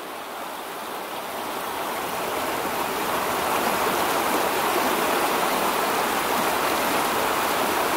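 Rushing water of a fast, rocky trout stream's pocket water, a steady hiss that grows a little louder over the first few seconds.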